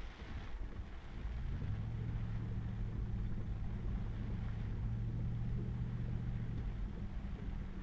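Pickup truck driving on a muddy dirt road, heard from inside the cab: a low rumble throughout, with a steady low engine drone that sets in about two seconds in and fades near the end.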